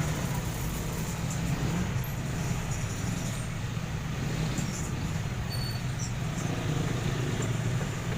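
Steady low mechanical hum, like a motor or engine running, with no clear change in pitch or level.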